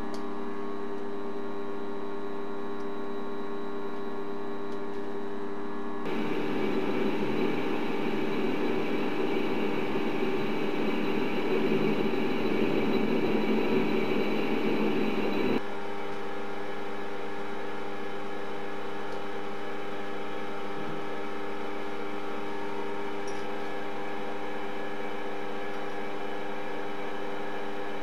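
Optimum D180x300 Vario mini metal lathe running at a steady speed, its motor and drive giving a constant hum of several pitches. For about ten seconds in the middle a louder, rougher noise joins, starting and stopping abruptly.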